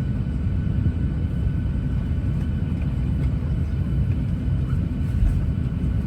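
Steady low rumble inside the cabin of a Boeing 737-800 parked before pushback, with faint steady tones above it.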